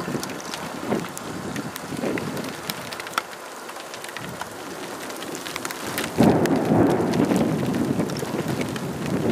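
Rain and wind in a thunderstorm, with scattered sharp clicks of drops hitting close by. The rush swells louder about six seconds in.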